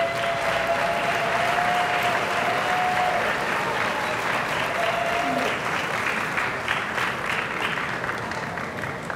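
Audience applauding steadily, easing off near the end. A long held high tone rises over the clapping for the first three seconds, and a shorter one sounds about five seconds in.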